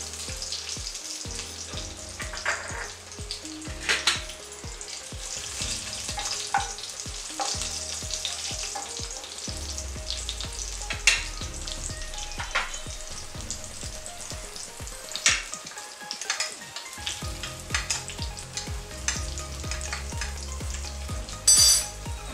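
Fresh curry leaves sizzling in hot oil in a tempering (vaghar) of whole spices and chillies, a steady hiss with scattered sharp crackles, the loudest near the end.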